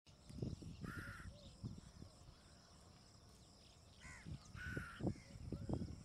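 Bird calls, harsh and cawing: one about a second in and two close together near the fourth and fifth seconds. Underneath are low rumbling thuds and a faint steady high whine.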